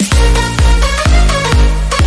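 Electronic dance music with a heavy bass drum beat, about two beats a second.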